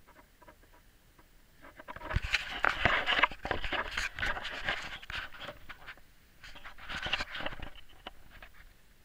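Scraping, rustling and light knocks of people clambering over dry leaves into a tunnel opening, with the handheld camera rubbing against surfaces. The noise comes in two spells, starting about two seconds in and again about six and a half seconds in.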